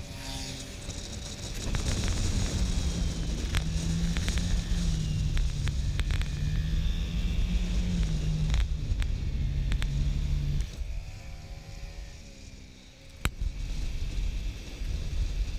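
Motor scooter engine running steadily at cruising speed, with wind rushing over the microphone and occasional short knocks. About two-thirds of the way through the engine sound drops away for a couple of seconds. A sharp click follows, then the engine and wind noise return.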